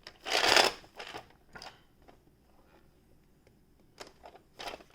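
Handling of a plastic toy shark: a loud rustling scrape about half a second in, then a few short, quieter knocks and rustles.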